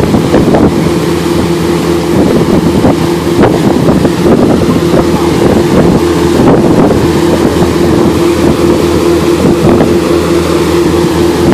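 Fishing party boat's engine running steadily at cruising speed, a constant drone with the wake churning behind and wind buffeting the microphone.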